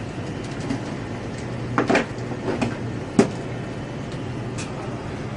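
Gas furnace running with a steady low hum, and a few sharp knocks and a clatter around the middle.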